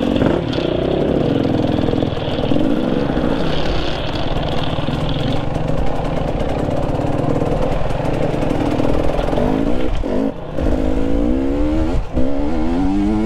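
Dirt bike engine running, then revving up in several rising sweeps over the last few seconds, with short dips between them as the bike accelerates and shifts.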